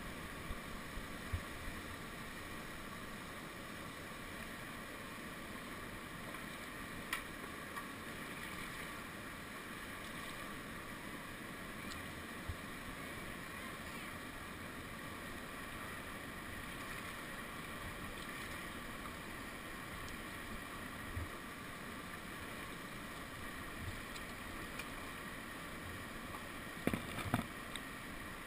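Steady rushing of a whitewater rapid, with a few light knocks, a small cluster of them near the end.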